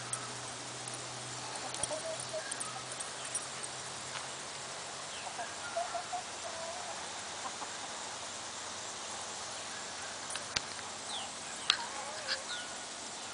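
Chickens clucking softly while they forage, in short scattered calls. A few sharp, high, short calls come near the end.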